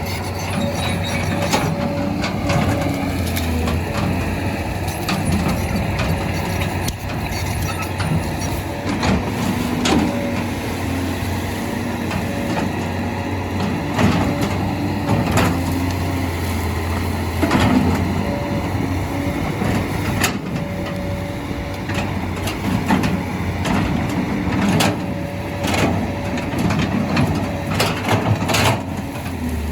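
Heavy diesel machinery engine running steadily, with repeated sharp knocks and cracks over it.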